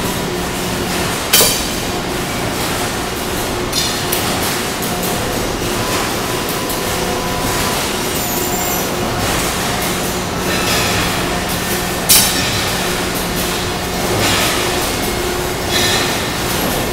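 Cincinnati 175-ton hydraulic press brake running, with a steady hum from its 30 HP pump motor. Two sharp metallic clanks come about ten seconds apart, with a few lighter knocks between them.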